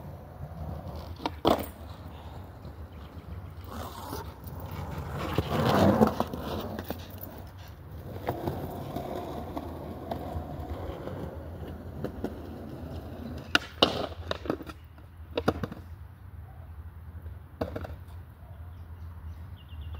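Skateboard rolling with a steady rumble from its wheels, swelling louder about six seconds in, and sharp clacks of the board hitting the ground: once early, then several close together in the second half.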